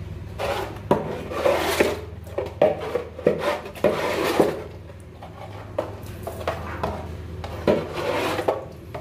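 Scraping and rubbing strokes with scattered knocks against metal: cleaning work on the sludge-coated floor of a boat's steel engine compartment. A steady low hum runs underneath.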